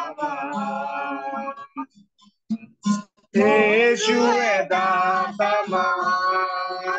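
Singing with a strummed acoustic guitar: the voice holds long notes in phrases, with a break of about a second and a half in the middle.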